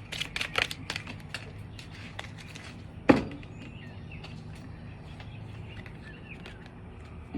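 A quick run of sharp clicks and taps in the first second and a half, then one loud knock about three seconds in. A faint, steady outdoor background runs underneath.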